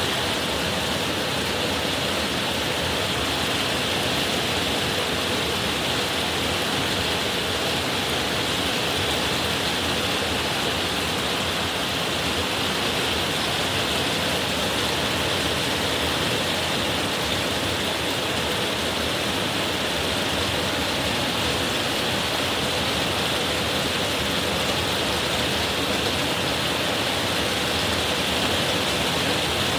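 Heavy rain shower pouring down steadily, a dense even hiss with no thunder.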